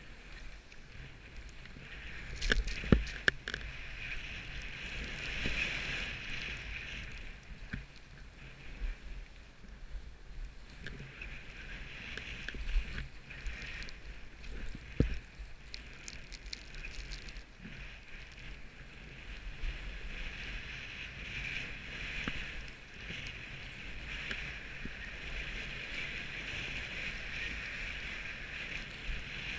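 Skis hissing and swishing through snow with some wind noise on the microphone, with a few sharp knocks about three seconds in and again about halfway through.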